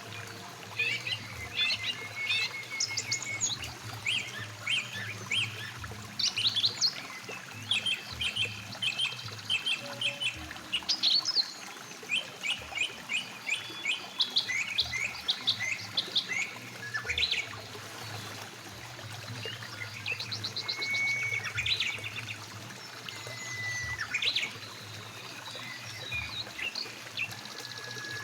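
Busy birdsong: rapid chirps and trills throughout, with a few longer sliding whistled notes in the second half. These sit over the steady sound of a flowing mountain river.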